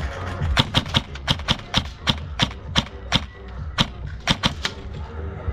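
Airsoft guns firing: a dozen or so sharp cracks at an uneven pace, some louder and nearer, some fainter.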